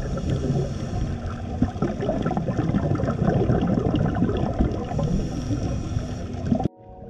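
Underwater sound through a GoPro housing: scuba exhaust bubbles rumbling and gurgling, with a dense crackle over them. It cuts off abruptly near the end.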